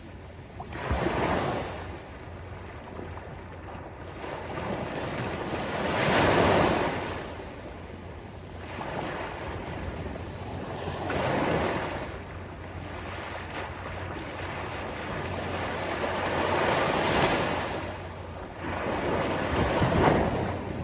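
Sea waves breaking on a beach, the surf swelling and washing back about five times, roughly every four to five seconds.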